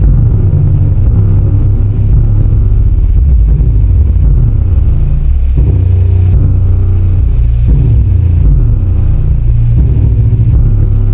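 Bass-heavy music played loud through a subwoofer driven by a TPA3116D2 class-D amplifier board. Only the low end comes through, with the bass notes changing every second or two.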